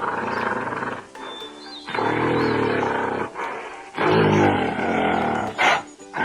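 Gorilla roaring: three loud calls of about a second each, then two short sharp cries near the end, over background music.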